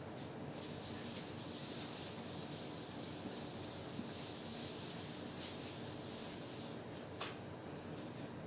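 Chalkboard duster wiping chalk off a chalkboard: steady rubbing, with a short knock near the end.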